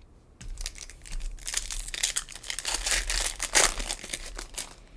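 Foil wrapper of a 2021 Topps WWE Women's Division trading card pack crinkling and tearing as it is ripped open by hand. It makes a dense crackle that starts about half a second in, is loudest in the middle, and stops just before the end.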